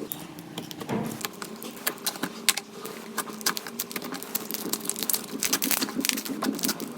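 Slime being squished and poked by hand, giving fast, irregular sticky clicks and pops that come thicker in the second half.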